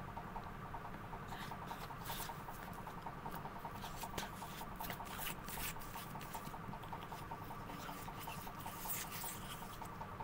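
Faint rubbing and scattered small clicks of a man stroking and nuzzling a white dog close to the microphone, over a steady background hum.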